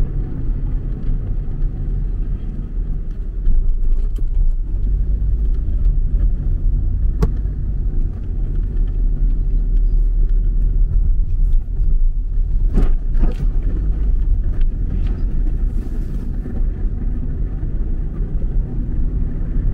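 Steady low rumble of a car driving at highway speed, heard from inside the cabin: engine and tyre noise on the road. A few short clicks sound over it, a pair of them a little past the middle.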